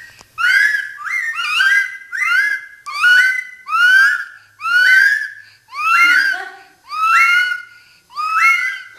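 Amazon parrot and a young girl trading short rising calls back and forth, about ten in a row at roughly one a second.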